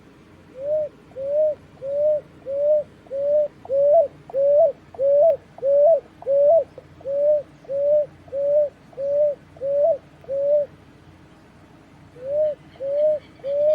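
Picui ground dove calling a long series of short, low cooing notes, each slurring up and then down, about two a second. It stops for about a second and a half, then starts a new series near the end.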